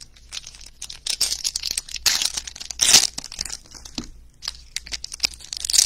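Wrappers of Panini Prizm baseball card packs crinkling and tearing as the packs are handled and opened, in short irregular bursts; the loudest comes about three seconds in.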